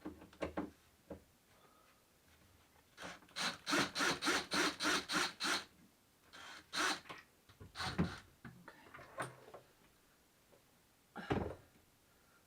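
Work on a wooden wardrobe door as it is taken off its hinges: scattered knocks and clicks, and a run of about nine quick rasping strokes, roughly four a second, about three seconds in.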